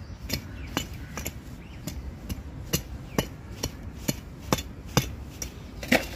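A hand tool digging into hard, dry, stony soil: sharp strikes about twice a second, the loudest near the end.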